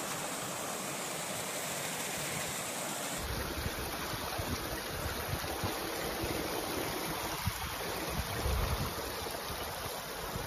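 Mountain stream rushing and splashing over rocks, a steady flow of water noise. About three seconds in the sound shifts and a low rumble joins it.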